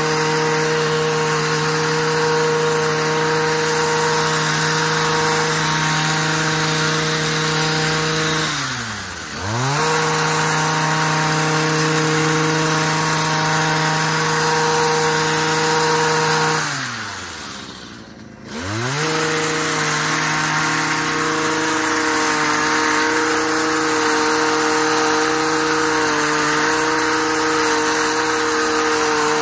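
Stihl HS45 two-stroke hedge trimmer running at high throttle while cutting hedge. About a third of the way in the engine is let off briefly and picks up again. Past the halfway point it is let down nearly to idle for a second or two, then revved back up.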